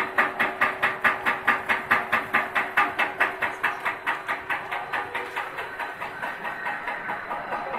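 Machinery of a snack frying production line clattering in an even, rapid rhythm of about five knocks a second, with a steady hum under it. The knocking grows a little softer in the second half.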